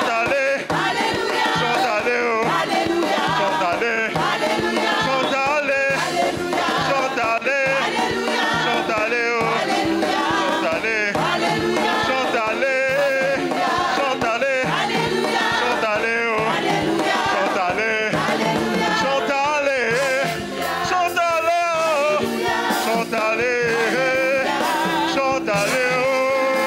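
A church choir singing a lively gospel song over music, many voices together without a break.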